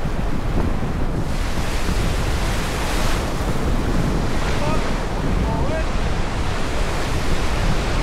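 Whitewater of a Class III river rapid rushing and churning around an inflatable raft, loud and steady, with wind buffeting the microphone.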